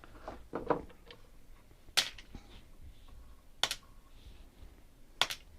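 Small brass bolts clicking as they are handled and set down, a few sharp metallic clicks a second or two apart.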